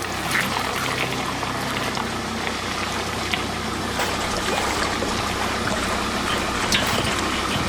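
Water trickling and splashing over a steady low motor hum, as a dinghy is launched off its trailer at a boat ramp.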